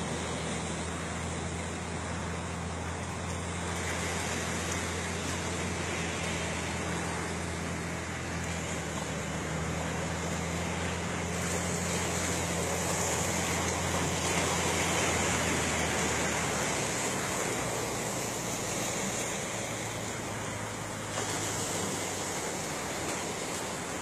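Wind and sea wash with a steady low engine hum underneath. The hum drops out about two-thirds of the way through.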